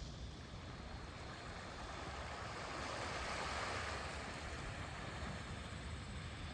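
Ocean surf washing on a beach, a soft hiss of waves that swells to a peak about halfway through and then eases off.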